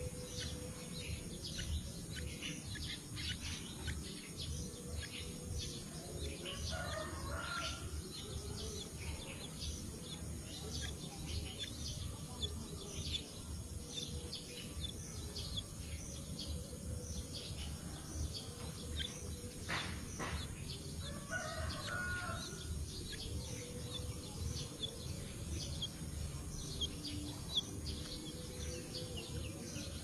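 Short, high bird chirps repeat steadily, about two a second, over a low background rumble. A rooster crows faintly twice, about seven seconds in and again about twenty-one seconds in, and there is a single sharp click just before the second crow.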